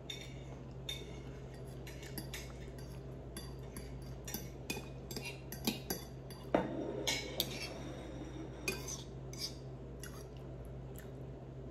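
Metal fork clinking and scraping against a ceramic plate while eating, in irregular small clicks scattered throughout.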